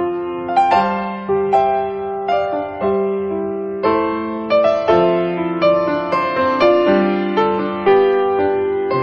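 Background piano music: a slow, soft piece of struck notes and chords that ring and fade, a new note or chord about every half second to second.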